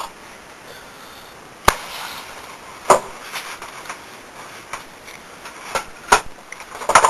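A handful of sharp knocks and bangs at uneven intervals, the first about a second and a half in and a cluster near the end.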